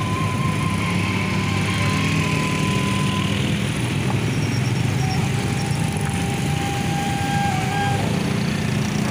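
Many small motorcycle engines idling and creeping along together in a traffic jam, making a steady low drone of overlapping engines.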